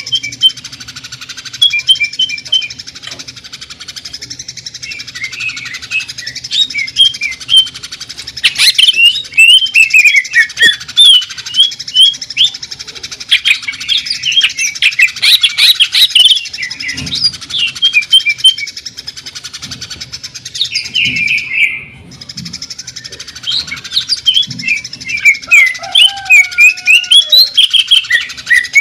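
Green leafbird (cucak ijo) singing loudly and without pause: rapid runs of short chirped notes and whistled slurs, including fast machine-gun-like 'shots' that are likened to a sewing machine.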